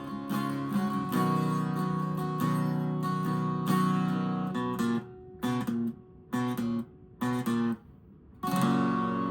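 Acoustic guitar strumming chords in a song's outro. About halfway through, the strumming breaks into short stabbed chords with gaps between them, and near the end a final chord is struck and left to ring out.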